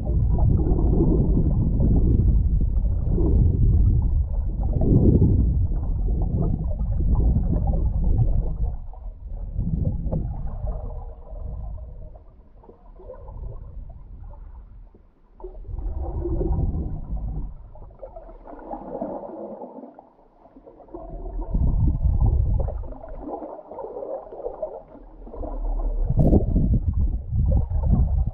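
Muffled rushing and gurgling of water flowing past a GoPro in its waterproof housing as it is towed underwater on a submersible rig. The rumble swells and fades every few seconds and drops nearly away twice in the middle.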